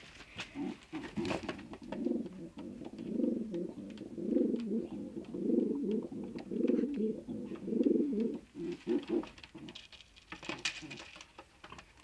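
Domestic pigeon cooing over and over in a run of low, pulsing calls that die away near the end, with light clicks and rustles of birds being handled in a wire-mesh cage.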